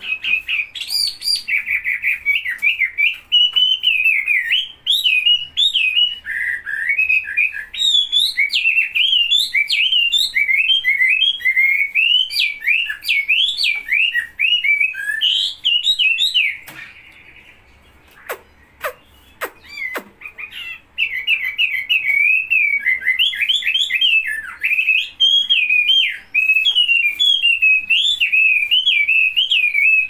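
Caged wambi songbird singing vigorously: a fast, varied, warbling run of notes that breaks off about halfway for a few seconds, during which a few sharp clicks are heard, then resumes.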